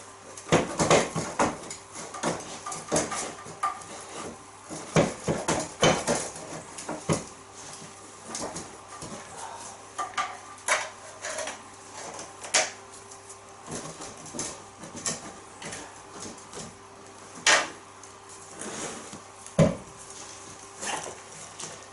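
Irregular metal clanks and knocks of steel tools on a classic Mini's rear subframe and suspension parts as it is stripped down, over a steady low hum.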